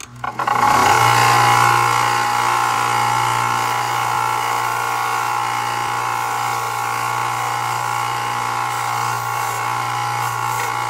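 Bench belt sander starting up and running steadily, sanding down the rough edges of a riveted leather knife sheath, with a steady motor hum under the belt noise.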